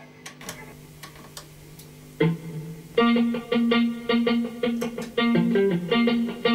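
Electric guitar playing a song's intro: after a few light clicks over faint held tones, a note rings out about two seconds in, then a steady rhythm of picked chords begins about a second later.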